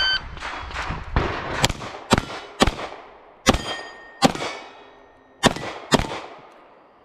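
A shot timer beeps, then a pistol fires a rapid string of shots at steel targets, several hits followed by the ringing of struck steel plates. This is one timed Steel Challenge stage string.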